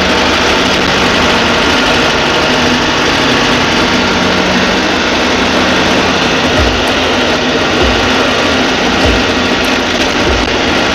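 Steady engine and road noise inside a moving passenger vehicle. A low hum is heard in the first half, and soft low thumps come about once a second from about six seconds in.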